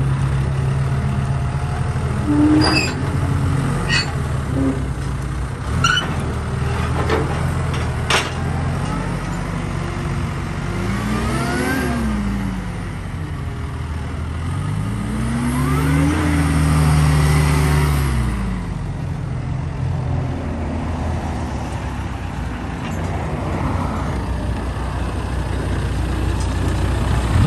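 Gehl telehandler's diesel engine running as the machine drives, revving up and back down twice partway through. There are several sharp clanks in the first eight seconds.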